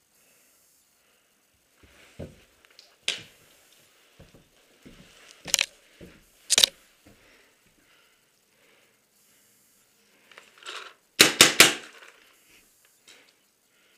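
Paintball fire in a small wooden bunker: single sharp cracks about three, five and a half and six and a half seconds in, then a quick burst of four or five near the end, with softer knocks between.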